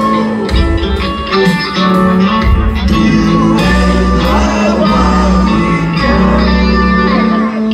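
A live rock band playing loudly: electric guitar over deep, held bass notes.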